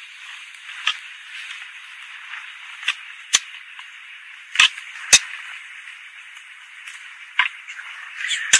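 Honeybees buzzing steadily in an open hive, broken by several sharp clicks and knocks from a metal hive tool prying wooden frames loose, the loudest around the middle.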